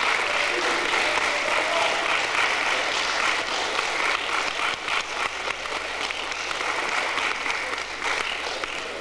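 Audience applauding: dense, steady clapping from the spectators that dies away near the end.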